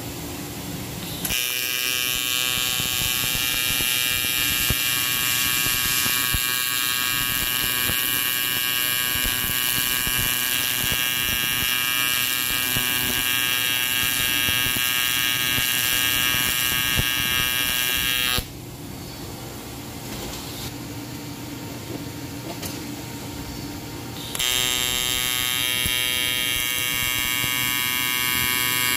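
AC TIG welding arc on aluminum from a Miller Dynasty welder at about 110 amps: a steady high buzz that strikes up about a second in, stops for about six seconds in the second half, then starts again.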